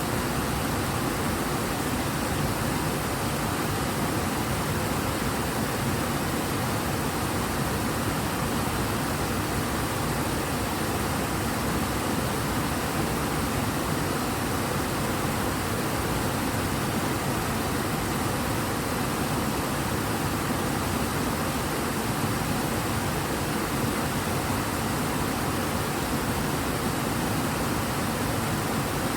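Water of the river Ebro rushing strongly downstream, a steady, even rush with no change.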